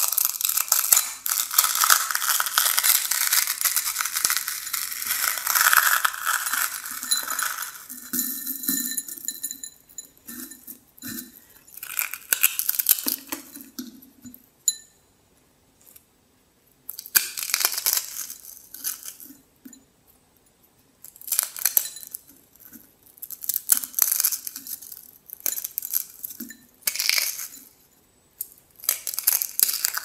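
A dry block of Hao Hao instant noodles crackling as it is crushed and crumbled between fingers, with the broken fragments falling into a glass bowl. Crackling runs without a break for the first eight seconds, then comes in short bursts every couple of seconds.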